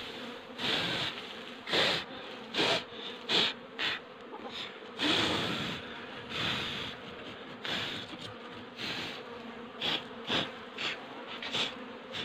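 Honeybees buzzing steadily around an open hive, with short, irregular brushing and scraping strokes as a hand sweeps debris off the wooden bottom board.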